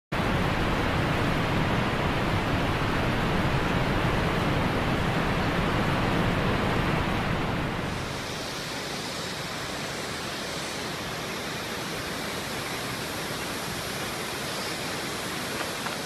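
Waterfall: a steady rush of falling water that drops to a quieter, thinner hiss about halfway through.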